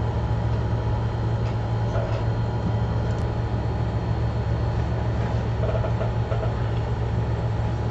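Steady low machine hum, even throughout, with a few faint ticks.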